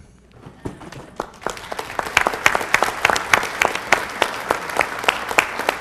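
Congregation applauding. A few scattered claps build into steady applause from about a second and a half in.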